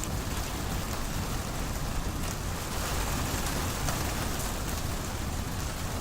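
Steady rain falling in a thunderstorm, an even hiss of rain with scattered drop ticks.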